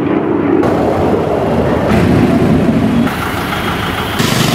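Road traffic running, a dense mix of vehicle engine and tyre noise that shifts abruptly in character a few times.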